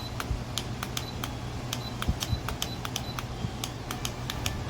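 Rapid clicking of the Dreo tower fan's control buttons, about three to four presses a second, stepping the timer setting up toward 12 hours, over the steady low hum of the fan running.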